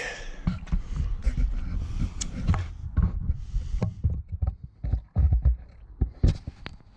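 Irregular clunks, knocks and rattles of the engine cover being unlatched and pulled off a 15 horsepower Johnson outboard motor, with low rumbling handling noise.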